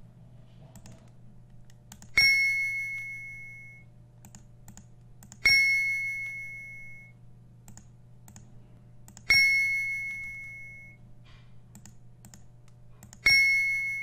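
Four bright chimes from a multiplication game's correct-answer sound, three to four seconds apart, each ringing out and fading over about a second and a half. Faint mouse clicks fall between them over a low steady hum.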